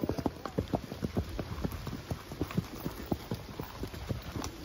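Horse's hooves thudding on a dirt forest trail, an uneven run of footfalls several a second.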